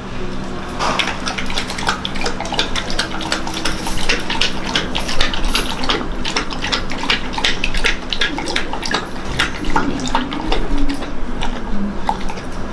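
Grey pit bull drinking milk from a plastic basin: quick, regular wet laps, with the tongue and muzzle knocking against the plastic.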